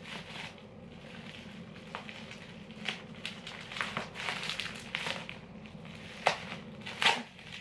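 Plastic packaging crinkling and crackling as a small parcel is unwrapped by hand, with scattered clicks and two sharper snaps near the end.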